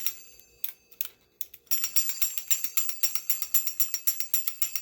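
Clockwork of an antique metal wind-up Pinocchio toy. A few separate clicks, as if from the heavy key being wound, then from just under two seconds in a fast, steady clicking clatter as the spring runs the mechanism.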